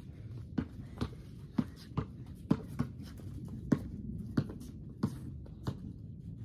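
A basketball being dribbled, with sharp bounces coming about every half second at a slightly uneven pace.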